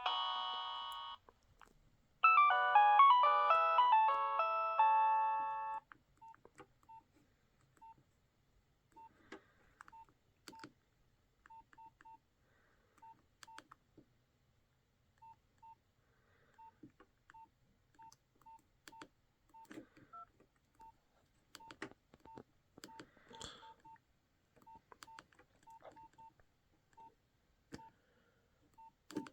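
Nokia 6030 mobile phone playing a polyphonic ringtone that stops about a second in, followed by a second ringtone melody of about four seconds. After that come short single-pitch keypad beeps at irregular intervals, with faint button clicks, as the phone's keys are pressed.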